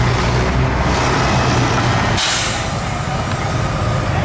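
Heavy vehicles idling and creeping in slow city traffic, engines running low and steady, with one short sharp hiss of an air brake about two seconds in.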